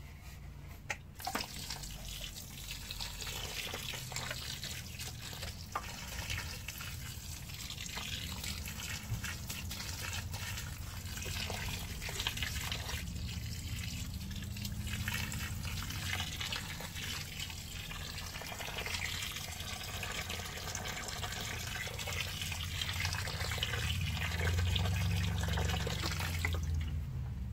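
Water pouring from a watering can's spout onto loose soil and splashing into a growing puddle in a planting hole. This is the generous watering-in given to a freshly planted grapevine. The pouring starts about a second in and stops near the end.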